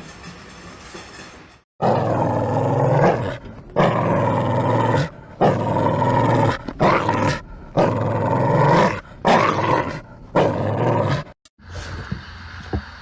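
An animal giving about seven loud, drawn-out yowling calls in a row, each lasting about a second, with short pauses between them.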